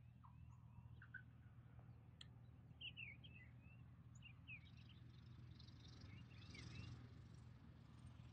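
Faint songbirds chirping, many short calls in quick succession, over a low steady hum.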